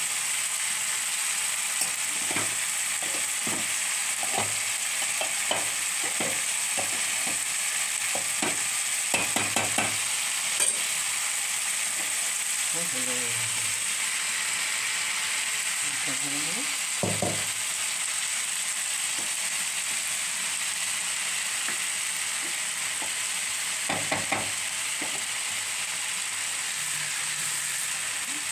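Chicken and potato curry sizzling steadily in a frying pan as the base of a biryani. Scattered clicks and knocks of a spoon against the pan and pot are heard while half-cooked rice is layered over it.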